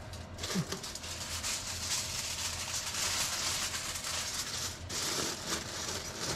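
Aluminum foil crinkling and rustling as it is folded into a pouch around a soft pretzel: a dense run of crackles that eases off about five seconds in.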